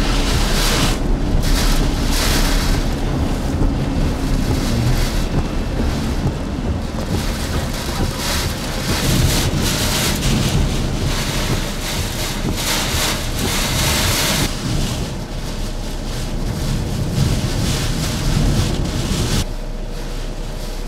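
Hurricane-force wind gusting with heavy rain, and wind rumbling on the microphone, surging and easing every few seconds. The wind and rain drop to a lighter level near the end.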